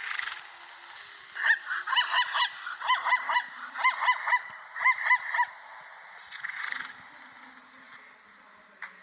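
Zebra calling: a run of short, honking barks in quick clusters of three or four, about one cluster a second, from about a second and a half in until about five and a half seconds.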